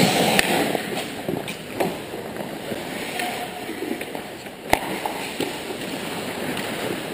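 Ice hockey play: skate blades scraping the ice and sticks and puck clacking, loudest at the start while players are at the net. Several sharp knocks, the loudest about two-thirds of the way in.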